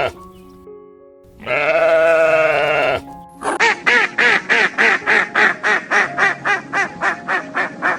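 A sheep bleats once, a long wavering call, over soft background music. About three and a half seconds in, a fast, even run of short pitched calls follows, about four a second.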